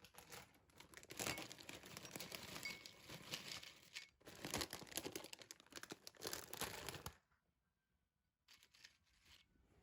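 Packaging being crinkled and rustled by hand, with tearing sounds, for about seven seconds with a brief pause in the middle, then a few faint rustles.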